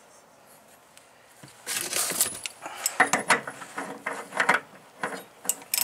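Irregular metallic clinks and rattles, beginning about a second and a half in, as a steel socket is fitted onto and worked on a mower blade's retaining nut.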